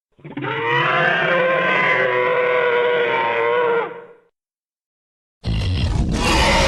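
Carnotaurus roar sound effects: one long pitched roar lasting about four seconds, then after a second of silence a second, deeper and noisier roar begins near the end.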